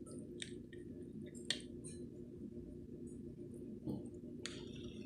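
Quiet steady low hum with a few faint clicks and taps, the sharpest about a second and a half in and another near four seconds.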